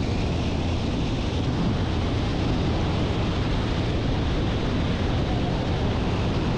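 Speedboat under way at speed on open sea: a steady, dense rush of engine and water against the hull, with wind on the microphone.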